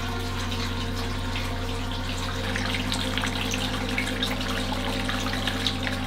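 Water from a pump-fed miniature waterfall trickling and splashing down rock in an aquaterrarium. The splashing grows busier about two seconds in, over a steady low hum.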